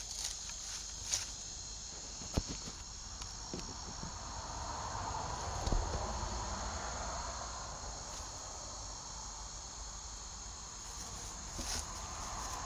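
Insects, crickets by their sound, chirring steadily in a high, even band, with a few light knocks.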